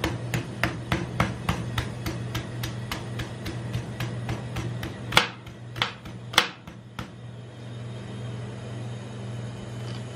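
Knife blade chopping and shaving the husk off a green coconut in quick strikes, about three a second, then a few harder, separate chops about halfway through before the chopping stops. A steady low hum runs underneath.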